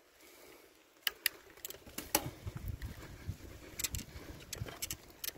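A bicycle being ridden over a bumpy dirt forest track. About a second in, irregular sharp clicks and rattling knocks from the bike begin, over a low rumble of the tyres.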